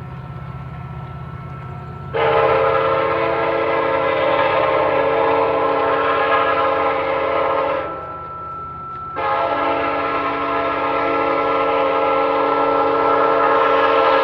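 Train horn sounding two long blasts, each held for about five and a half seconds as a chord of several steady tones, starting about two seconds in with a short gap near the middle. Under it runs a steady low rumble of the train.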